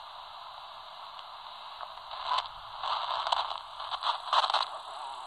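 Static hiss from the speaker of an Albrecht AE2990 AFS handheld CB radio as it is stepped across frequencies in the 27 MHz band. From about two seconds in, louder irregular bursts of signal break through the hiss.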